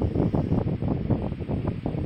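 Wind buffeting the microphone: a low, uneven rushing that flutters rapidly and irregularly.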